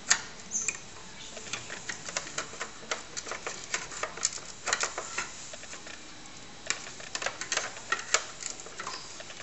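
A 1771 floppy disk controller chip, a 40-pin chip, being pried out of its socket on a TRS-80 Model I expansion interface board with a small flat screwdriver and fingers. It gives a scatter of small irregular clicks, with a short pause about halfway through.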